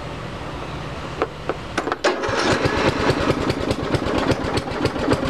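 1998 MTD Yard Machines riding lawn tractor's 12.5 hp engine being cold-started on choke. It cranks for about two seconds with a few clicks, then catches and runs with rapid, even firing pulses.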